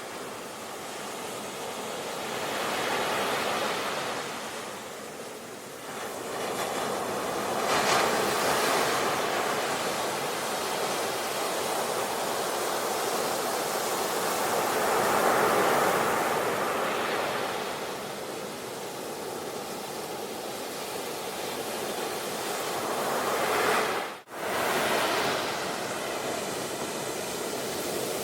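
Sea waves breaking and washing up a shore, rising and falling in slow swells every several seconds. The sound cuts out suddenly for a fraction of a second about 24 seconds in.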